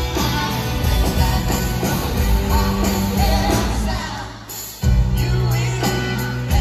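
Live pop-rock band playing with singing, loud and full. About four seconds in the band drops out briefly for a break, then crashes back in all together.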